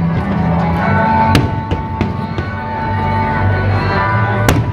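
Music with a steady bass line and held notes, over which fireworks go off: two sharp bangs, about a second in and near the end, with smaller crackling pops between them.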